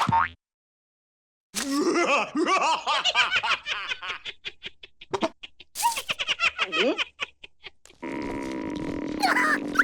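Cartoon character voices laughing hard in quick repeated bursts, starting about a second and a half in and trailing off into shorter giggles. Near the end a steady humming background with a held tone comes in.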